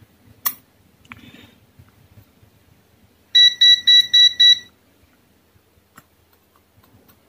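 A sharp snap about half a second in as a metal tool shorts a capacitor on the circuit board to discharge it. Then, in the middle, six quick high-pitched electronic beeps, the loudest sound, over a little more than a second.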